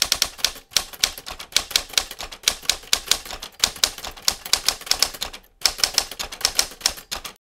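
Typewriter keys clacking in quick strikes as a typing sound effect, with brief pauses under a second in and about five and a half seconds in, stopping just before the end.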